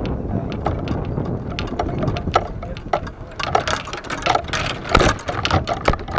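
Golf cart driving along with a steady low rumble, and the golf clubs rattling and clinking in the bag against the microphone. There is a loud knock about five seconds in, as if from a bump.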